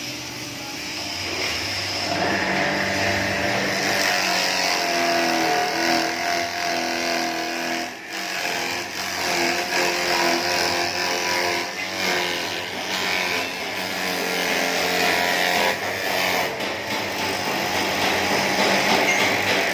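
Small 200-watt electric grass chopper running, a steady motor hum under a broad mechanical whirr whose loudness wavers, with short dips about 8, 12 and 16 seconds in.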